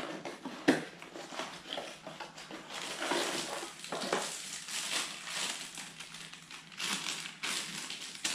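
Cardboard box and plastic wrapping rustling and crinkling as a finderscope is unpacked by hand, with one sharp knock about a second in.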